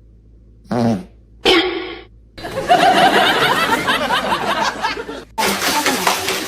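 Two short vocal sounds, then people laughing for about three seconds. The laughter cuts off abruptly and a different, hissy sound takes over near the end.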